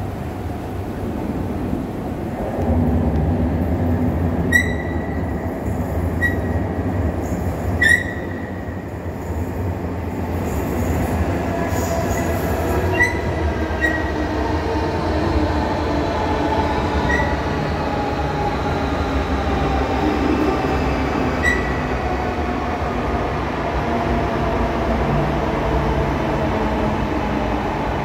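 Electric Cercanías commuter train pulling into an underground station. A low rumble builds about two seconds in, short high wheel squeaks come about seven times, and a motor whine falls steadily in pitch as the train slows along the platform.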